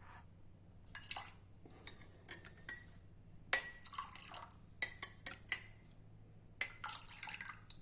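Faint sounds of liquid being poured and dripping into a glass, with scattered light clinks of glass and utensils.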